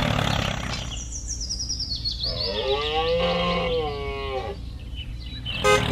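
A cow mooing, one long call that rises and then falls, over a steady low engine rumble; a short horn toot sounds just before the end.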